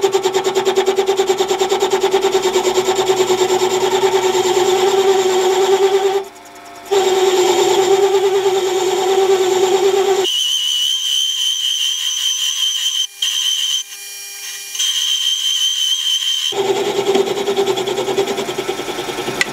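Warco WM180 mini lathe parting off a spinning flywheel, giving a steady pitched whine from the cut. It breaks off briefly about six seconds in. From about ten to sixteen seconds only a thin high whistle is left, then the fuller whine returns.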